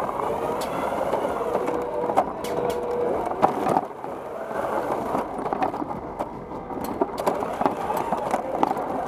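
FIRST Robotics Competition robot driving fast across carpet, its drive motors and wheels running with frequent knocks and clatters.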